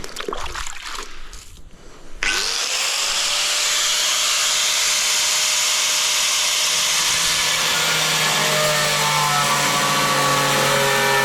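Some handling knocks, then an angle grinder switches on about two seconds in, spins up with a quick rising whine, and runs steadily and loudly while cutting porcelain tile wet. In the last few seconds steady whining tones come into its sound.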